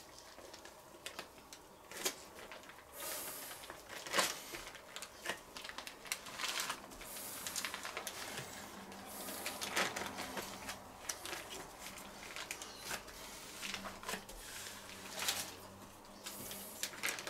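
Baking paper rustling and crinkling in short, irregular spells as it is rolled tight around a bacon-wrapped meat roll, with scattered soft taps and clicks.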